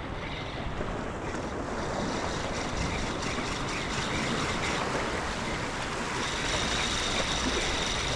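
Ocean surf washing steadily, with wind buffeting the microphone. A faint steady high whine comes in about six seconds in.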